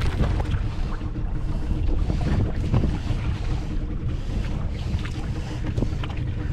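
Wind buffeting the microphone on a small boat at sea, a dense low rumble with a faint steady hum underneath and scattered light clicks and knocks.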